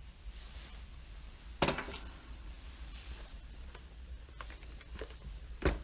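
Hands handling and turning over a plastic blender base on a table, with two sharp knocks, one about a second and a half in and a louder one near the end as the base is set down.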